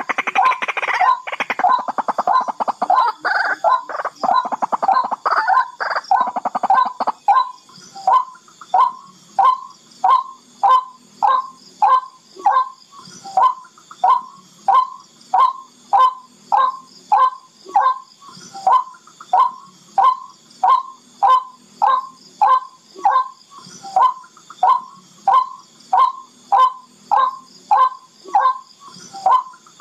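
Barred rail (tikling) calling. For about the first seven seconds there is a fast, harsh chattering run of notes. After that comes a steady series of single sharp notes, about three every two seconds.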